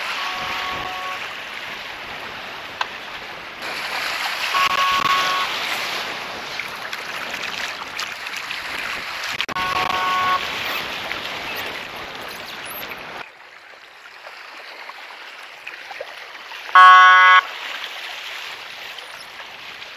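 Steady wind and water noise with a brief horn toot, about a second long, sounding faintly three times, then a much louder, shorter horn blast near the end. The background noise changes abruptly twice.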